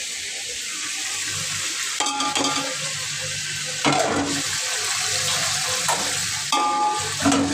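Chicken with onion, ginger-garlic paste, tomatoes and spices sizzling steadily in a large aluminium pot, with a spoon stirring through the masala and knocking against the pot a few times.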